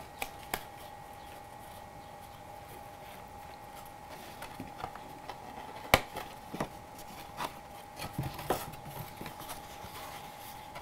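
Hands handling and pressing a glued cardstock box against a wooden tabletop: scattered light taps, clicks and paper rustles, the sharpest about six seconds in, with a cluster in the later part, over a faint steady hum.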